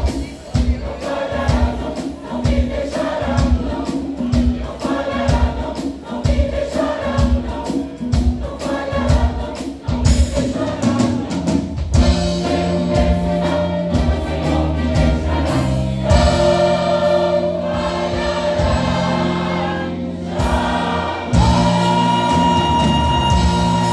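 Gospel choir singing with instrumental accompaniment. A steady beat runs through the first half, then the music moves into long held chords.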